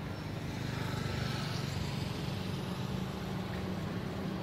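Engine of a motor vehicle running with a steady low hum, slowly growing a little louder.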